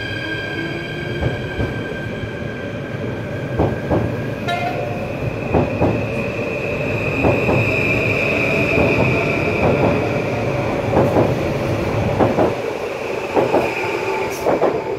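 Dutch NS electric multiple-unit passenger train running past along a station platform: a steady rumble with wheels clacking over rail joints and a high, steady electric whine. It is loudest about halfway through as the last cars go by.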